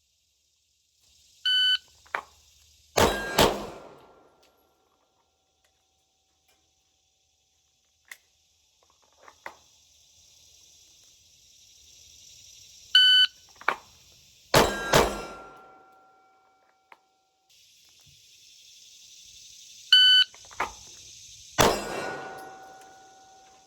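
Three handgun draw drills, each started by an electronic shot timer's beep and followed about a second and a half later by pistol shots. A short ringing tone lingers after each string of shots. A steady high hiss runs underneath.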